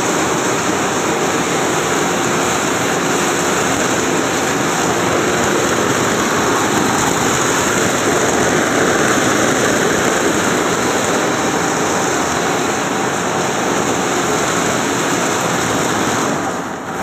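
Fire water pump running: a loud, steady rush of machine and water noise that drops away shortly before the end.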